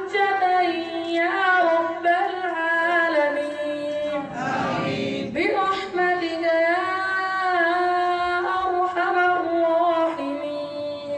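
A boy's voice chanting unaccompanied through a microphone and PA, with long held, ornamented notes. A short noisy rush breaks in about four and a half seconds in.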